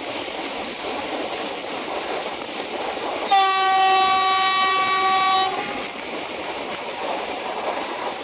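Passenger train rolling along, heard from a carriage window, as the hauling SU42 diesel locomotive sounds its horn in one steady blast of about two seconds, starting about three seconds in.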